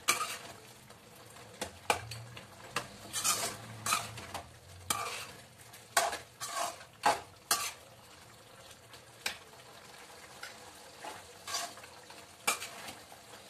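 Metal spoon stirring and scraping mutton curry around an aluminium kadai, clinking against the pan, over a faint sizzle, as chilli powder and salt are mixed into the meat. The strokes come thick for the first half, then thin to a few scattered taps.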